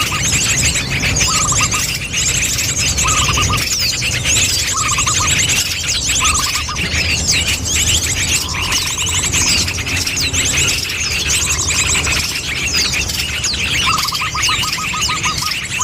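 Bird-lure recording of many small birds chirping and trilling at once. A high, rapid trill comes in repeated bouts, and a lower trill recurs about every second and a half, running longer near the end, over a steady low hum.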